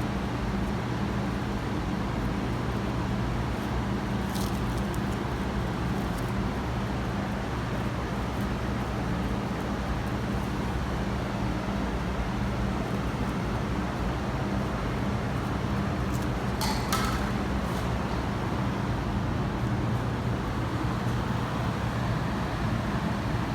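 Steady low background hum and rumble, with two brief clicks, one about four seconds in and another near seventeen seconds.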